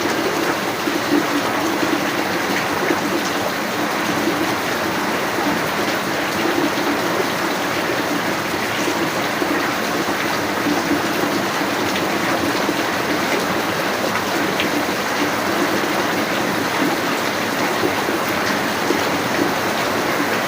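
Rain falling steadily, a dense, even hiss of water without a break.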